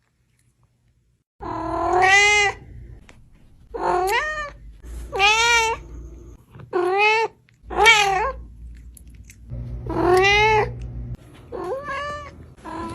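A domestic cat meowing loudly and repeatedly, about eight drawn-out meows that bend in pitch, starting about a second and a half in.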